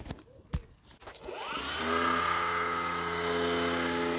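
A few sharp clicks, then about a second in a 24-volt brushless DC motor on its speed controller spins up, its whine rising in pitch as it turns a 500-watt permanent-magnet alternator. It settles into a steady electric hum with a whine over it.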